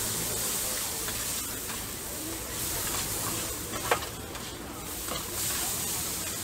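Noodles sizzling on a hot flat-top griddle as they are tossed and scraped with two metal spatulas. One sharp clink comes about four seconds in.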